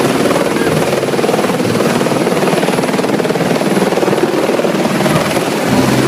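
Helicopter hovering: loud, steady rotor and engine noise.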